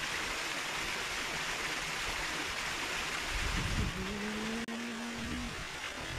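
Steady rushing noise of water flowing in a small irrigation ditch, with a short low steady hum about four seconds in.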